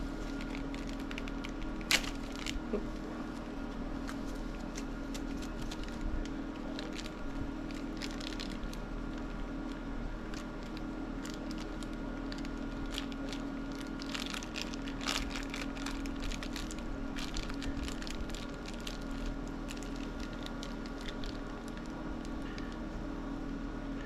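Gloved hands working anchor grease onto metal parts and bolts: scattered small squishy clicks and taps, with one sharper click about two seconds in, over a steady low hum.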